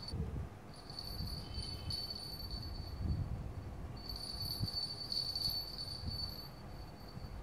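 A small bell inside a cat's toy ball jingling as a kitten bats it across a tile floor. The ringing stops twice and then starts again, with a few soft knocks of the ball and paws, the clearest about three seconds in.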